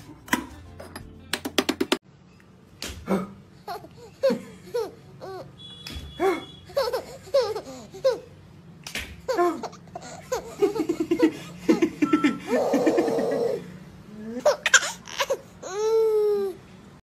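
A baby laughing in fits of giggles, short pitched bursts again and again, ending in a long falling squeal of a laugh. A few sharp clicks come before the laughter.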